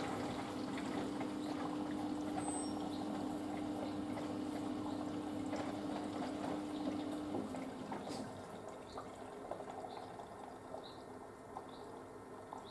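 Panasonic front-loading washing machine taking in water: water pours into the drum over a steady hum that cuts off about seven seconds in. After that, quieter trickling and light ticks.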